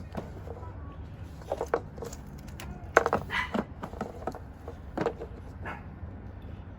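Plastic air filter housing of a car's air intake being unclipped and its lid lifted: scattered clicks and knocks, the sharpest about three seconds in.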